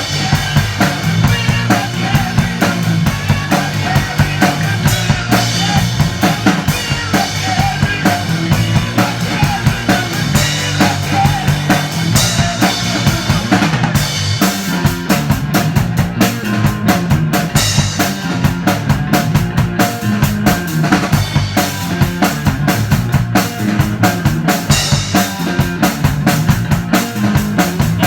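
Rock band playing live at rehearsal: a drum kit keeps a steady beat of kick and snare under bass and electric guitars.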